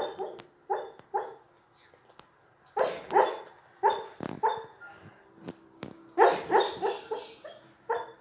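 A dog barking in its sleep while dreaming: about a dozen short barks and yips, coming in clusters of two or three with pauses between.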